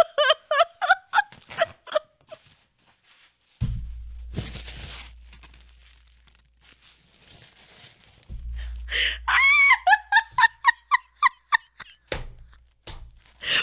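A woman laughing helplessly in short, high-pitched squealing pulses at the start and again for a few seconds near the end. Two dull low thumps land between the bursts, each followed by a breathy hiss.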